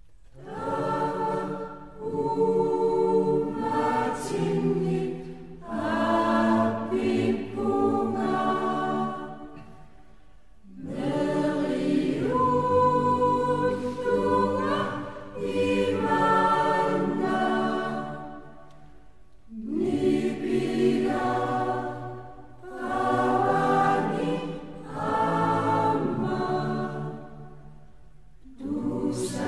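Choir singing a slow piece in long held phrases, with short pauses between them.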